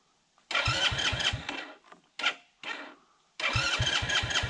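Stalled pit-bike engine being cranked on its electric starter in two tries of about a second each: the starter whirs and the engine turns over in quick even thumps without catching.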